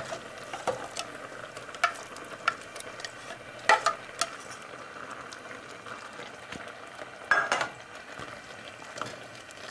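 A metal spoon scrapes pureed spinach out of a pan and stirs it into a pot of simmering risotto rice. Under the stirring there is a steady sizzling hiss, and the spoon knocks sharply against the pot several times.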